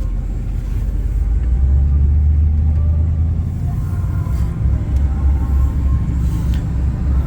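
1986 Chevrolet El Camino under way, engine and road noise as a steady low rumble that grows louder about a second and a half in. The engine was just worked on for a misfire, and the driver judges it running much better.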